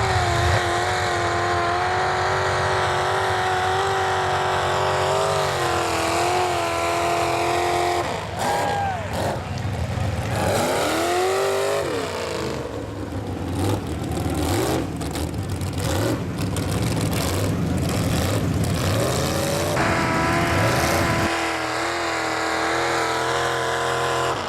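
Chevy mega truck's engine running hard at high revs, held steady, then swinging up and down in pitch in the middle as the throttle is worked through the mud, before holding high again near the end.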